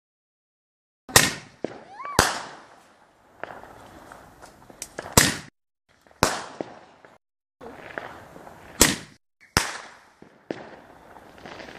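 Consumer aerial fireworks firing a run of about seven sharp bangs at irregular intervals, with crackling between them and a brief rising whistle about two seconds in.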